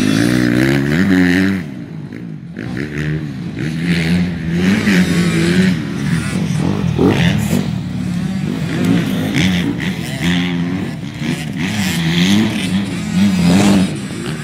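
Dirt bike engines revving up and down on a motocross track, the pitch climbing and falling with each throttle and gear change. Loudest in the first second and a half, then a little more distant.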